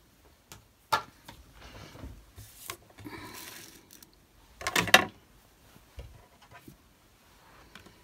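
Objects being handled and set down on a craft desk: a few sharp knocks and clicks with short rustles, the loudest clatter about five seconds in.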